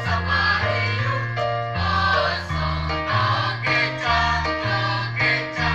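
Choir singing in full voice over an instrumental accompaniment whose bass line moves in even, regular steps.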